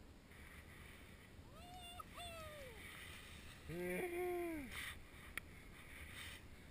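A man's excited whoops while skiing powder: two short, high yells that rise and fall, then a louder held shout about four seconds in as he carves a turn close by, followed by a couple of sharp clicks.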